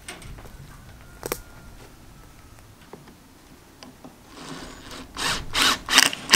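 Power drill driving 1¼-inch wood screws into 1x3 wooden cleats: a few light clicks, then about five short loud grinding bursts in quick succession near the end as the screws are run in.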